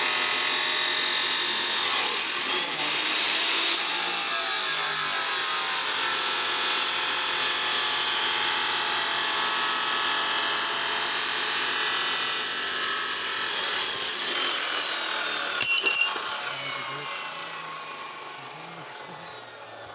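Electric power tool running under load with a high motor whine that shifts in pitch. Near the end it gives a brief sharp burst, then winds down and fades.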